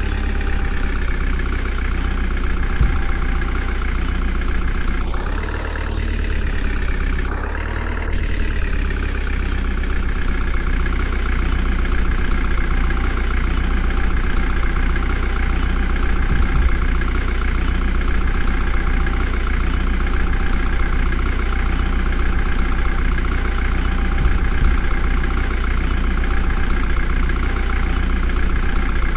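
Heavy diesel engine idling steadily with a deep rumble, revved up and back down twice about five to eight seconds in.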